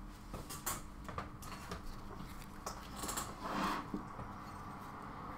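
Light clicks, taps and rustling as a bare circuit board is pushed into and clamped by the metal alligator clips of a helping-hands stand, handled with work gloves, over a faint steady hum.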